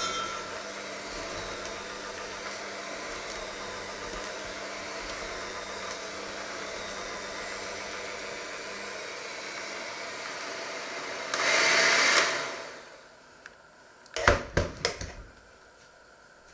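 Electric hand mixer with twin wire beaters running steadily in a thick batter in a stainless steel bowl. It gets louder for about a second near 11 s, then winds down and stops. A few sharp knocks follow.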